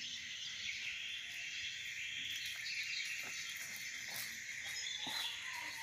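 Low, steady high-pitched background hiss with a few faint clicks and knocks.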